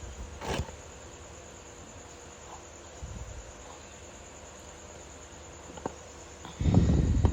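Crickets chirring steadily in the background, with a few brief scraping and handling sounds from scraping boiled egg and carrot, and a louder low bump and rustle near the end.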